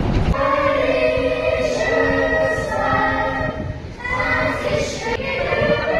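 A choir singing long held notes in harmony, with several voices sounding together.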